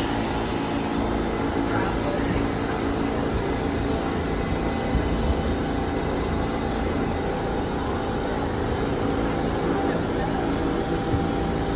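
Steady drone of New York City subway cars standing in a station with their doors open, the cars' equipment humming, with passenger chatter in the background.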